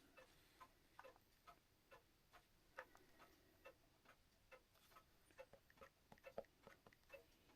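Faint ticking of mechanical clocks, several running out of step with each other, so the ticks fall unevenly at about two to three a second.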